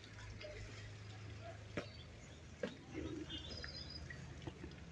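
Quiet room tone: a steady low hum with two sharp clicks a little under a second apart midway, and a few faint high chirps.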